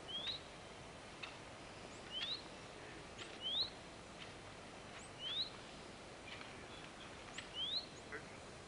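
A small bird calling outdoors: a short, thin, rising whistle repeated five times at uneven gaps of one to two seconds, over a faint outdoor hiss with a few soft clicks.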